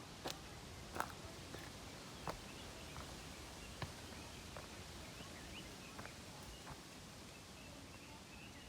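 Footsteps on a dirt hiking trail: a few sharp, irregular steps or crunches, the loudest in the first four seconds and fainter ones after, over faint outdoor ambience.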